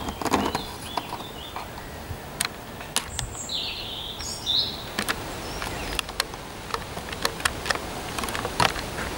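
Outdoor ambience: a few short bird chirps about halfway through, with scattered sharp ticks and clicks over a low steady hiss.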